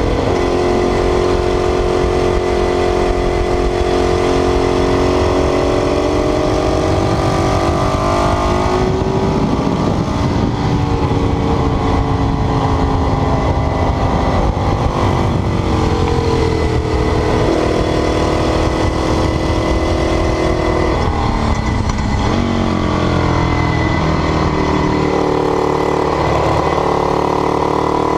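Ducati 848's V-twin engine running under load, its revs climbing and falling again and again as the gears change, with a deep drop about twenty-two seconds in before it pulls back up.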